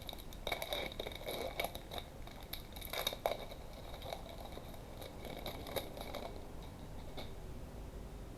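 Sports card pack's plastic wrapper crinkling and tearing as it is opened, with the cards inside being handled. The irregular rustling dies down about six seconds in.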